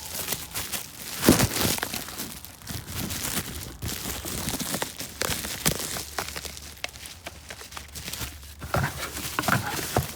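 Packaging crinkling and rustling as gauge boxes are handled and opened, with scattered sharp clicks and knocks, the loudest about a second in.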